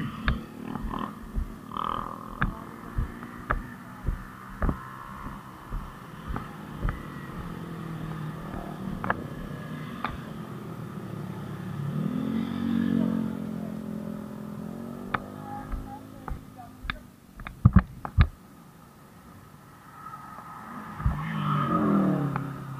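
Motorcycle engines running on the road, their pitch rising and falling as they pass. Light knocks come about twice a second through the first several seconds, and a few loud sharp clicks fall about three-quarters through.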